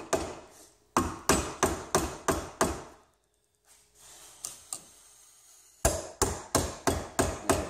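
Hammer striking a screwdriver used as a punch, driving a wedged copper winding out of a microwave oven transformer's steel core held in a bench vise. The coil comes out slowly. Metallic strikes come about three a second, stop for about three seconds midway, then start again.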